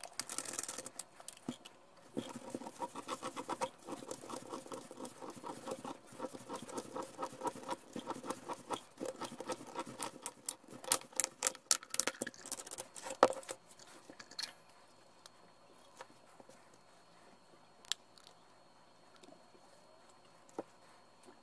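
Steel oil filter can being turned by hand in an oil filter cutter: a quick, even run of clicks and scraping as the cutter wheel scores through the can. It stops after about 13 seconds, leaving a few single clicks as the cut-off parts are handled.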